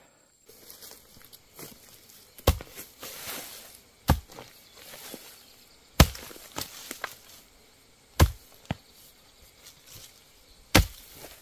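A hoe chopping into the soil to dig out bamboo shoots: about six sharp blows, roughly two seconds apart.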